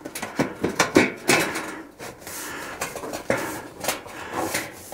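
Steel stovepipe of a Camp Chef Alpine cylinder wood stove being worked down into the stove's pipe collar: irregular metallic clanks and scrapes of metal on metal. The pipe is seating only about half an inch.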